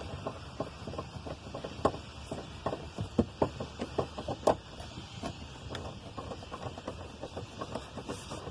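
Irregular clicks and light knocks of a screw being driven in by hand to fix a plastic car door panel, with a few sharper knocks among them.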